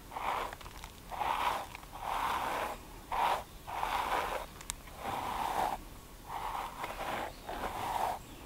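Bristle paddle hairbrush drawn down through a long, full beard in repeated brushing strokes, about one a second, each a short noisy scrape.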